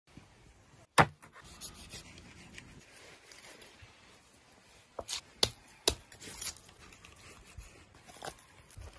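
Knife scraping the scales off a large grass carp, a rasping scrape, broken by sharp knocks: the loudest about a second in and a few more around five to six seconds in.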